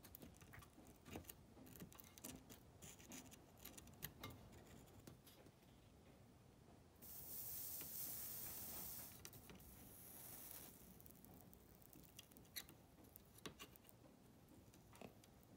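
Faint small clicks and taps of tool handling, then flux sizzling on the hot soldering iron for about two seconds, starting suddenly about halfway through and fading over the following second. The solder joint on the 1/4-inch input jack is being reflowed with fresh solder to improve its connection.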